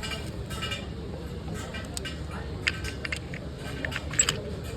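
Indistinct voices over a steady low hum, with a few sharp metallic clicks, the loudest near the middle and again near the end.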